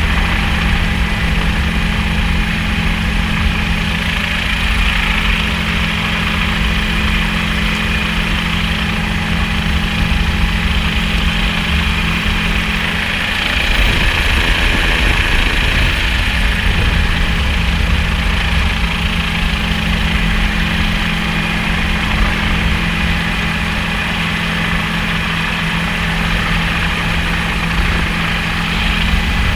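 Helicopter running steadily: a loud, constant drone with steady low tones, which waver briefly about halfway through.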